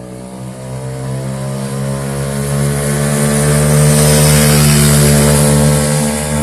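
Scooter engine, fitted with a big bore kit and a new variator and roller weights, running under acceleration. It grows louder to a peak about four seconds in and then fades.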